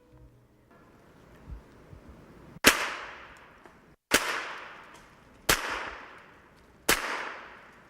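Four gunshots fired at an even pace, about a second and a half apart. Each is a sharp crack followed by an echo that dies away over about a second.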